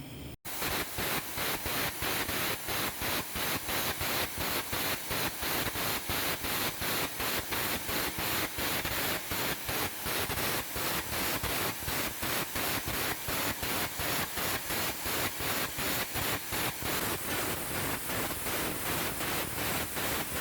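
Air carbon arc gouging along a weld joint: a steady hiss of the air jet with the arc's crackle, pulsing evenly about four times a second.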